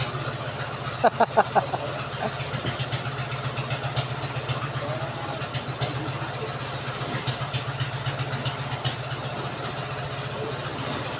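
Fishing boat's engine idling with a steady low throb. About a second in, four short loud sounds in quick succession stand out over it.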